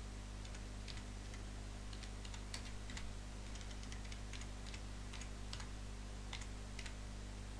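Computer keyboard keys clicking in an irregular run of keystrokes as a short phrase is typed, stopping shortly before the end. A steady low electrical hum and hiss lie underneath.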